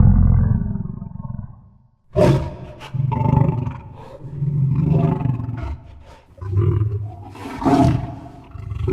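Monster growl sound effect: a deep growl trails off, then after a short gap a new run of growls comes in swelling pulses about every second or so. One of them has a hissing breath near the end.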